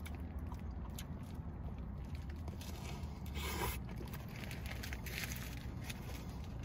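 Close-up chewing of a mouthful of crispy fried chicken sandwich: crunching and wet mouth sounds, with a louder, denser crunch about halfway through.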